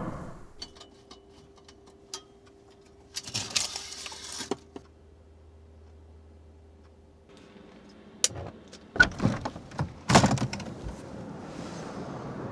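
Quiet handling sounds: scattered small clicks, a faint steady hum and a brief rustle, then a few sharp knocks and clatter about eight to ten seconds in, like a door being worked, after which a steady hiss of ambient noise sets in.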